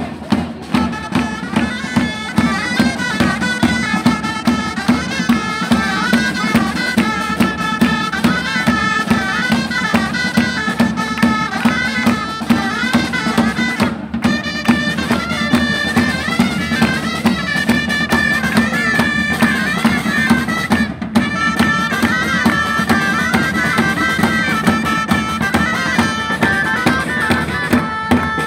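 Gralles, the Catalan double-reed shawms, playing a folk tune together in a loud, nasal reedy tone, over a drum beating steady time.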